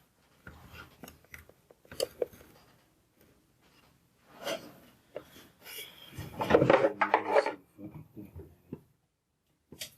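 Objects being handled on a workbench: irregular rubbing, scraping and light knocks, loudest in a cluster of scraping and clatter about two-thirds of the way through.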